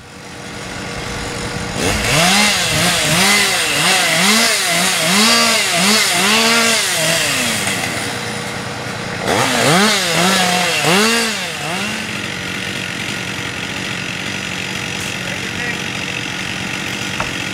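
Chainsaw cutting, its engine revved up and down in quick repeated bursts, about one and a half a second, twice over, then settling into a steadier run.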